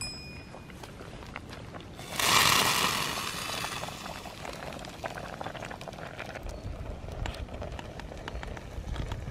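Boiled rice being drained: its starchy cooking water poured from a pot through a mesh sack into a steel bowl, starting with a loud splash about two seconds in and tapering off. This is followed by a softer patter of dripping as the wet rice slides out onto the mesh.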